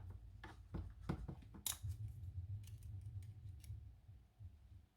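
Small metal clicks and taps, irregular and faint, as the pin tumblers are taken out of a Medeco lock core one by one.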